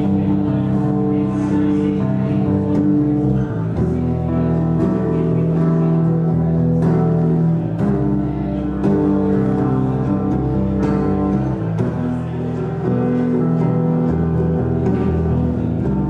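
Live band music: guitar playing over steady, sustained low notes.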